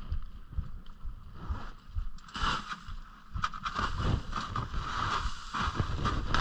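Crampon footsteps crunching on snow and ice, uneven and irregular, growing busier and louder from about two seconds in.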